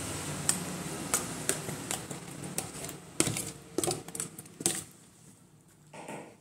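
A metal fork clicking and scraping against a plastic tub while raw chicken pieces are turned in their seasoning: irregular sharp clicks that die away after about five seconds.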